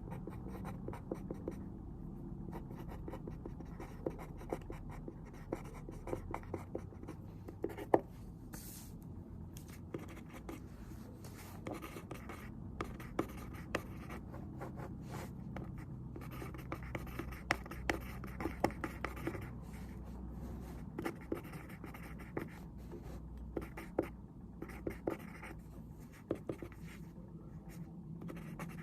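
Pen writing on paper, an irregular run of small scratches and taps over a steady low room hum, with one sharper tap about eight seconds in.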